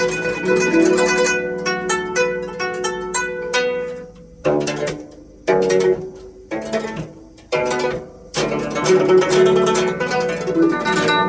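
Guzheng (Chinese zither) played solo: fast runs of plucked notes, then single strong plucks about once a second, each left to ring and die away, before fast dense playing resumes about two-thirds of the way through.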